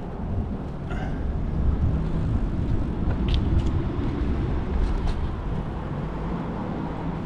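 Low, steady rumble of wind buffeting the microphone of a camera riding on a moving bicycle, a little louder between about one and a half and three and a half seconds in.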